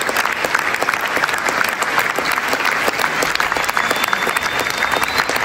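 Theatre audience applauding steadily, a dense mass of clapping hands.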